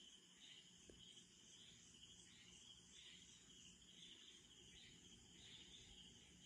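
Faint chorus of night insects: a steady high trill that pulses unevenly, with a thinner, higher hiss above it.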